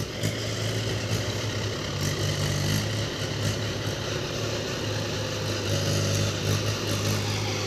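Tractor diesel engine running steadily with a constant low hum.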